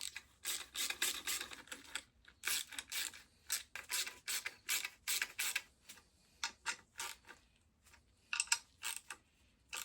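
Ratchet wrench clicking in repeated short strokes, about two or three a second with a brief pause near the end, as a bolt is tightened on a car suspension part.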